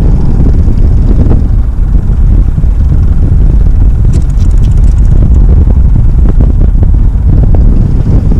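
Loud, steady wind buffeting the microphone on a small open boat on choppy lake water, a low rumble with no clear engine note.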